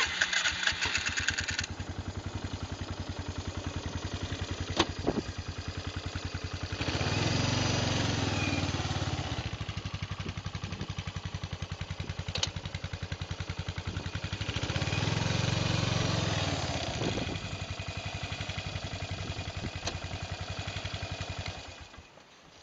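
Polaris Trail Boss 330 quad's single-cylinder four-stroke engine started, catching at once with a brief high whine, then idling with a steady even pulse. It is revved twice for a few seconds each, then switched off shortly before the end.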